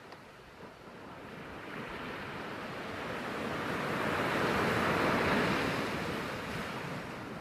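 Sea surf: a wave swells and breaks on the beach, loudest about five seconds in, then washes back.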